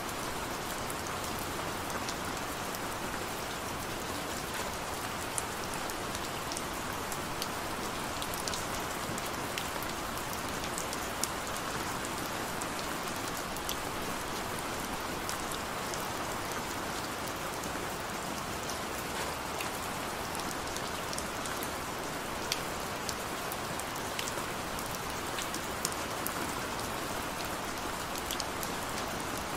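Steady rain falling: an even hiss with scattered sharp drop ticks, no let-up or change in strength.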